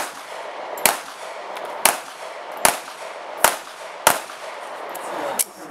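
A string of handgun shots, about seven, fired roughly one a second, each a sharp report with a short ringing tail; the last is fainter.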